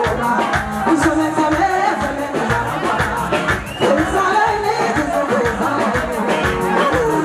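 Live music: a woman singing into a microphone over an amplified band with a steady beat.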